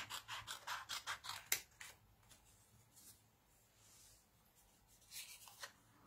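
Paper card being handled and scratched on a craft mat: a quick run of light scratchy clicks in the first second and a half, then quiet, then a few more near the end.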